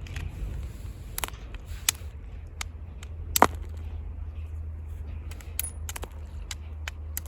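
Flint knapping: a series of sharp, irregular clinking strikes on a flint core as flakes are knocked off, the loudest about halfway through, over a steady low rumble.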